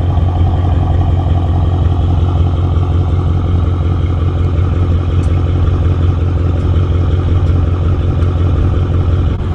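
Straight-piped exhaust of a tuned Audi S7's twin-turbo V8 idling steadily with a deep, even drone.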